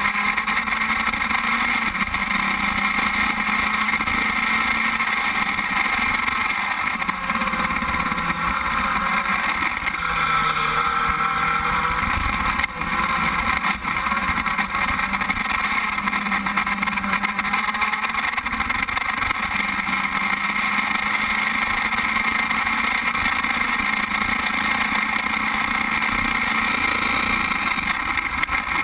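Open-wheel formula race car's engine running hard at speed, heard from the car itself, with wind rushing over it. The engine note drops about ten seconds in and then climbs back up.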